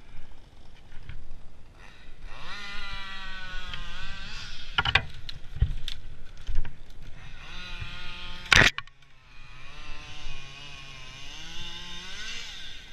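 Motorised timber saw at work: the motor revs up in a rising whine twice, with sharp cracks about five seconds in and a loud crack at about eight and a half seconds, typical of a saw cutting through a log and the wood snapping.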